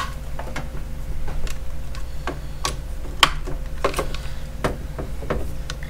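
Irregular light clicks and ticks, about a dozen, from small plastic parts being handled, over a steady low hum.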